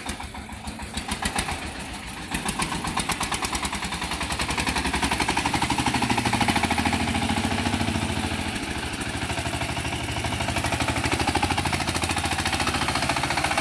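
Small single-cylinder diesel engine of a wheeled mini tractor running as the tractor is driven, a rapid, even knocking from its firing strokes. It gets louder about two seconds in, then swells and eases as the driver works the throttle.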